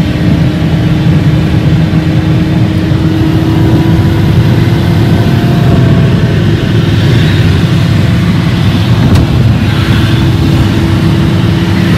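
U-Haul moving truck driving, its engine and road noise heard from inside the cab as a loud, steady drone with a constant hum.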